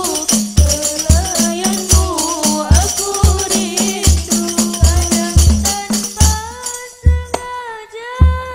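Hadroh ensemble: girls' voices singing a melody over rebana frame drums and bass drums beating a steady, busy rhythm. About six seconds in the drumming thins to a few strikes under the held singing, then picks up again near the end.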